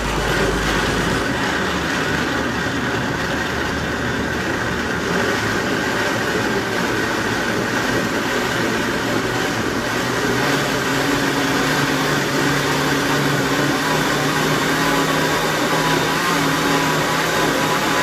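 Oster OLIQ610 1400 W blender running steadily, its motor and blade whirring as it blends corn kernels and liquid into a smooth corn cream. The motor note changes and grows a little louder about ten seconds in.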